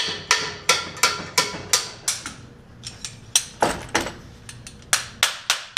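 Repeated sharp metal-on-metal strikes with a ringing tone, about three a second and pausing briefly about halfway through, from a dowel pin puller working dowel pins out of a cast-iron 350 small-block Chevy block.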